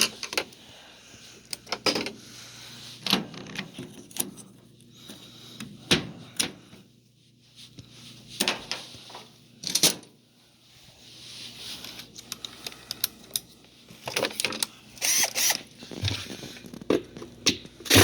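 Irregular clicks, taps and knocks of tools being handled against a washer's plastic agitator hub while its six Phillips screws are about to be backed out.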